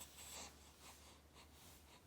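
Faint, soft rustling and scratching, strongest in the first half second, with a few weaker rustles after it.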